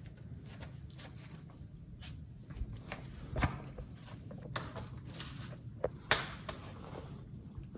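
Shoes and hands scuffing and scraping on rock during a climb up a rock ledge, with clothing or pack rustling, scattered small knocks, and a low steady rumble underneath. The sharpest knocks come about three and a half and six seconds in.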